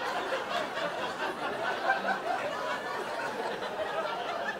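Theatre audience laughing at a comedian's punchline, many voices at once.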